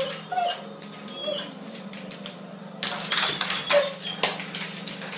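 A pet's few short, high calls and scattered clicks over a steady low hum. About three seconds in, a louder stretch of scuffling and clattering begins.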